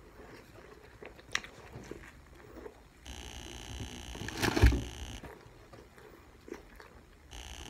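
Close-miked eating: a person biting and chewing McDonald's fast food, with small wet mouth clicks and a louder bite about four and a half seconds in.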